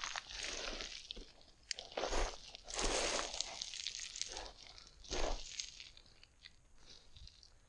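Footsteps crunching and sliding on loose scree on a steep downhill slope, several heavy steps in the first five seconds or so, then fading out.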